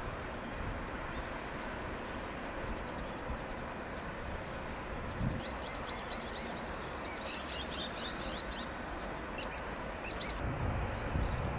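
Small birds chirping in quick series of short high calls, faint at first and louder from about five seconds in until near the end, over a steady low rumble.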